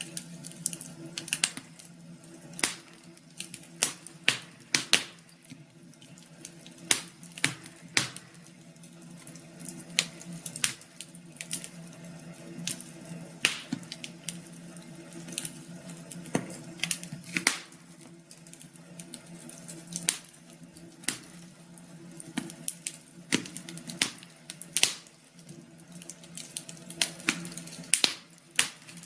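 Wood fire crackling, with sharp irregular pops over a low steady hum.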